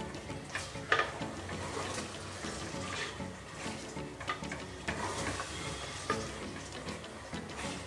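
Wooden spoon stirring a wet prawn and curd masala in an aluminium pressure cooker, with scraping and irregular knocks of the spoon against the pot.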